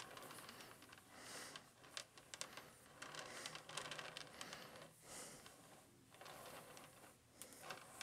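Faint rubbing and a few small clicks from a plastic display turntable being turned by hand, close to silence.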